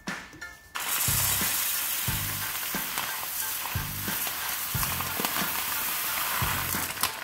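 Dry orzo pasta being poured into hot oil in a pot, sizzling steadily. The sizzle starts suddenly about a second in.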